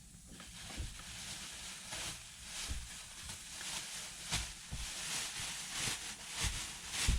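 Rustling and crinkling of packaging being handled, with a few dull thumps, the loudest near the end.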